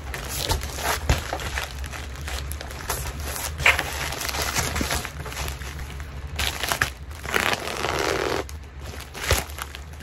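White plastic shipping mailer crinkling and rustling as it is handled and pulled open, with scattered sharp crackles and clicks over a low steady hum.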